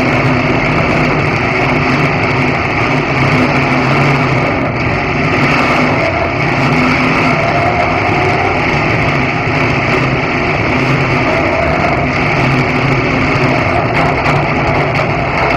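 Stock car's V8 engine running steadily at low revs, heard from inside the cockpit as the car rolls slowly in a line of other stock cars.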